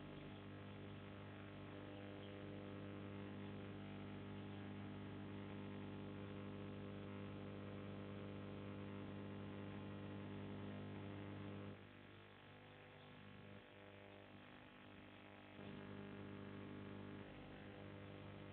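Faint, steady electrical hum with a low buzz. It drops away for about four seconds roughly twelve seconds in, then comes back.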